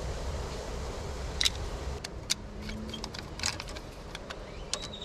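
Small scattered clicks and taps of a flathead screwdriver working the terminal screws of a plastic circuit breaker, over a low rumble that fades out about two seconds in.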